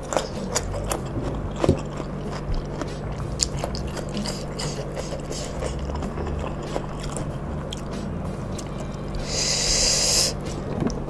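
Close-miked chewing of crunchy raw vegetable, with many crisp crunching clicks over a steady low hum. About nine seconds in comes a short, loud burst of hiss lasting about a second.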